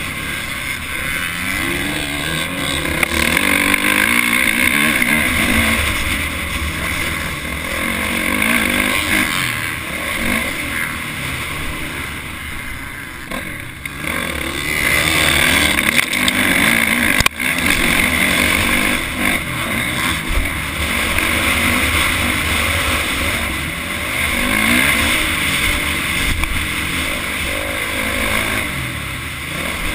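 Motocross dirt bike engine revving up and falling off again and again as it is ridden hard around a dirt track, heard from the bike itself with a rumble of wind and chassis noise on the microphone. There is one sharp knock about 17 seconds in.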